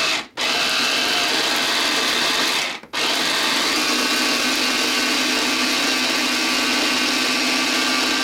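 Small electric food chopper running, chopping garlic and parsley fine: a split-second burst, a run of about two and a half seconds, then a steady run to the end, with two brief breaks between.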